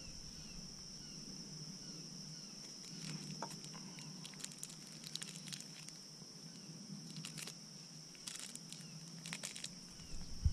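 Outdoor woodland ambience: a steady high-pitched insect drone, with scattered light rustles and ticks and faint short chirps.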